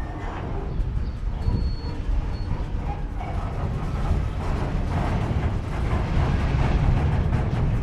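Empty coal train of open hopper cars moving along the track: a heavy rumble of wheels with dense metallic creaking and clicking, growing steadily louder, and a brief high squeal about a second and a half in.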